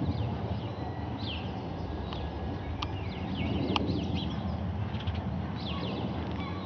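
Distant, steady rumble of a Boeing 747-8F's GE GEnx engines at cruise altitude, with a faint engine howl about three seconds in. Small birds chirp repeatedly over it.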